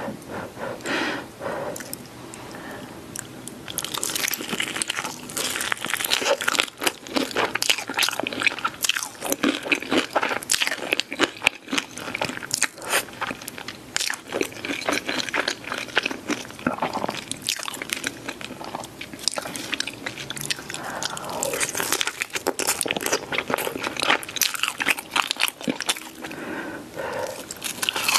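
Crispy fried chicken dipped in cheese sauce being bitten and chewed: many short crunches and crackles, softer for the first few seconds, then loud and frequent.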